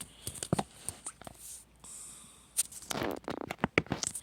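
A cat chewing and tearing at paper: irregular crinkling and ripping noises, busiest in a cluster over the second half.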